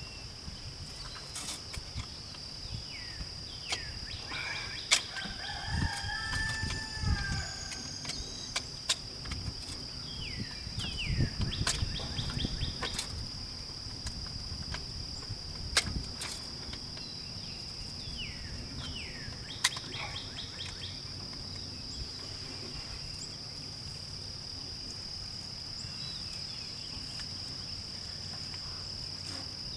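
Outdoor ambience: a steady high-pitched insect drone with scattered bird chirps, and a few sharp clicks.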